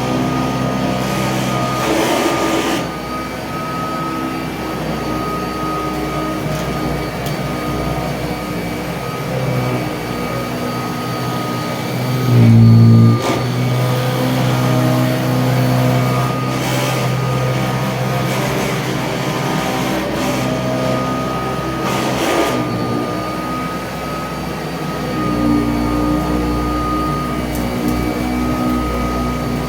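Kirby Tradition upright vacuum cleaner running steadily while vacuuming carpet, a motor hum with a thin whine over it and a rattle that comes from the handle-to-machine connection. About halfway through it briefly gets louder and deeper.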